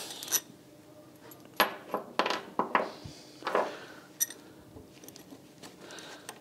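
A steel bar and small metal pieces being handled: a string of sharp metallic clinks, some ringing briefly, with light scraping between them.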